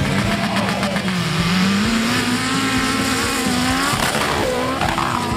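Competition off-road jeep engine revving hard under load, its pitch climbing about a second and a half in, holding, then dropping sharply near the four-second mark before rising again.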